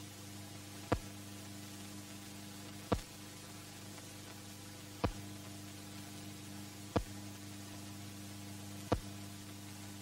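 Steady low hum and hiss, broken by a sharp click about every two seconds: the background noise of an old newsreel soundtrack.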